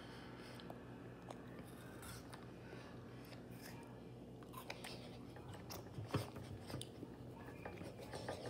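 Faint mouth sounds of a child eating an ice pop: soft licking and biting with small clicks, over a faint steady low hum. A few louder short taps and knocks come in the last couple of seconds.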